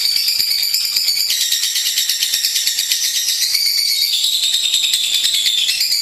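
A lovebird in full, non-stop (gacor) song: a long, unbroken run of rapid, shrill chattering trills, its pitch dipping a little about four seconds in and rising again near the end.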